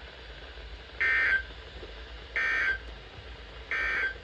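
Three short bursts of Emergency Alert System (SAME) digital data tones, each about half a second and buzzy and shrill, evenly spaced over a faint steady hum. They are the end-of-message code that closes the severe thunderstorm warning.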